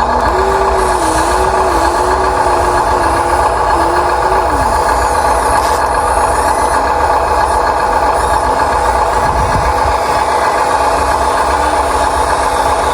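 Huina 1593 RC excavator running: a steady electric motor and gear whine, with a wavering tone that rises early on and falls away about four and a half seconds in.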